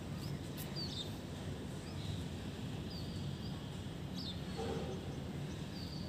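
Birds chirping: short, high, falling chirps about once a second, over a steady low hum of city background noise. A brief lower call sounds about two-thirds of the way through.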